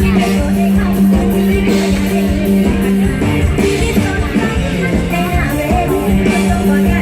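Live Isan band music with a singer, over a steady held low note that drops out briefly about five seconds in.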